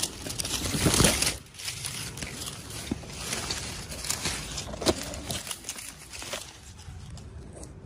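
Packaging being handled and unwrapped: dense crinkling and rustling in the first second and a half, then scattered crinkles, clicks and taps.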